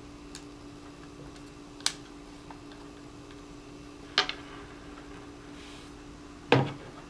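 A few sharp metallic clicks and taps of small hand work on a Tippmann TPX paintball pistol: an Allen key backing out the shell screws and the screws being set down, the loudest click near the end. Under them runs a faint steady hum.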